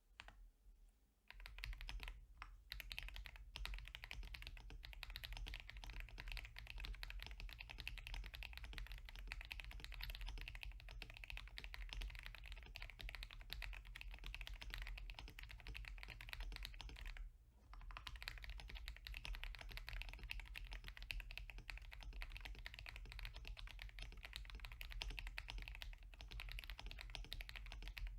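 Continuous fast typing on a KBDFans KBD67 Lite R3 mechanical keyboard with lubed KTT Rose linear switches and Gazzew 65 g springs: a dense run of keystroke clicks, starting about a second in, with a brief pause past the middle.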